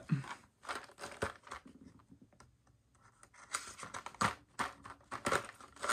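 Plastic figure packaging and tape being handled: scattered scratches and clicks, with a quiet stretch about two seconds in and a busier run of clicks near the end.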